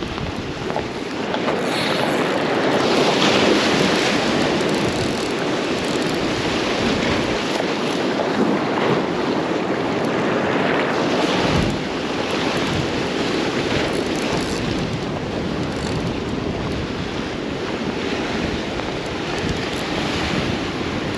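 Rough surf breaking and washing against a rock jetty, with wind buffeting the microphone; it swells louder a couple of seconds in.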